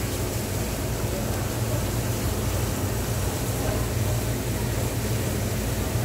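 Steady low machinery hum with an even hiss over it, unchanging throughout.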